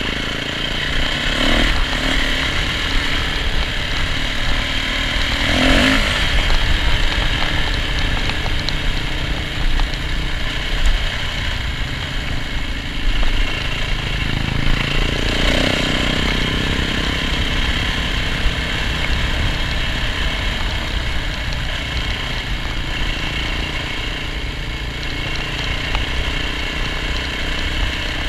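Yamaha dirt bike's engine running steadily under way, heard close from the rider's seat with wind noise. The revs swell briefly a few times, near 6 and 15 seconds in.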